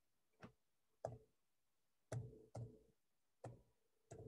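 Faint computer keyboard keys pressed one at a time, about six separate clicks over four seconds, as a number is typed in.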